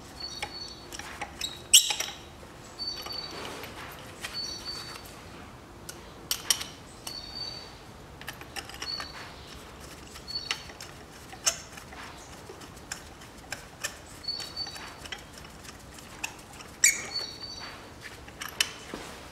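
Spark plug socket and extension bar being turned by hand to thread a new spark plug into the cylinder head: a short, high squeak every second or two as the tool is turned and re-gripped, with scattered sharp clicks and taps of metal.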